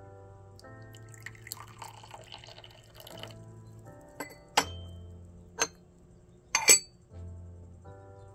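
Tea being poured during a gongfu session: liquid trickles for about two seconds, then teaware clinks sharply four times, loudest near the end. Background music with sustained chords plays throughout.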